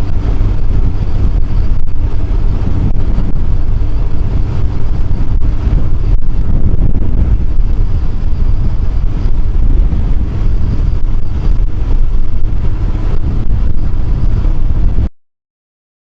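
Kawasaki ZX-12R motorcycle under way: heavy wind buffeting on the microphone over the steady drone of its inline-four engine, cutting off suddenly near the end.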